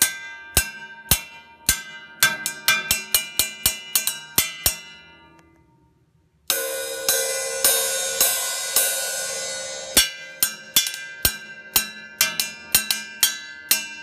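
A homemade cymbal of 14-gauge cold-rolled copper struck repeatedly, each hit a sharp strike with a short, weak ring that dies away quickly; the hits come faster about two seconds in and stop just before five seconds. About six and a half seconds in, a Sabian cymbal is struck repeatedly, its bright wash ringing on loudly between hits, showing how much less the copper rings.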